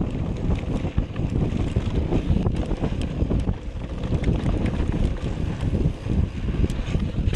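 Heavy wind buffeting on a body-mounted action camera's microphone as a mountain bike rolls fast downhill on a dry dirt trail, with frequent sharp clicks and rattles from the bike over the rough ground.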